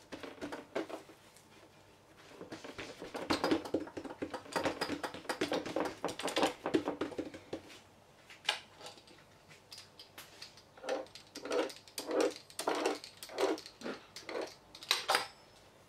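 Knife blade knocking on a wooden tabletop while cutting strips through layered dough, with a run of about seven even knocks roughly half a second apart near the end. Earlier, a busier stretch of quick clicks and taps from handling the dough on the table.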